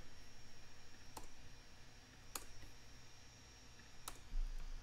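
Three faint, sparse clicks about a second or more apart, from working a computer keyboard and mouse while editing code.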